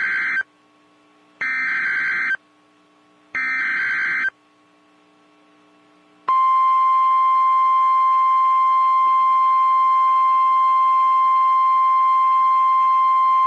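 Emergency Alert System SAME header: three bursts of warbling digital data tones, each about a second long. About six seconds in, the loud, steady, single-pitched 1050 Hz NOAA Weather Radio attention tone starts, the alarm that precedes a tornado warning announcement.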